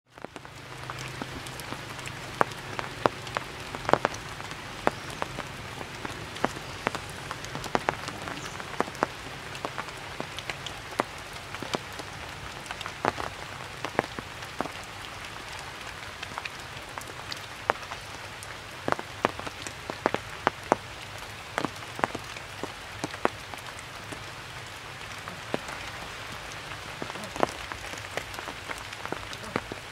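Steady rain falling through a tree canopy, with many sharp, irregular clicks of single drops striking close by.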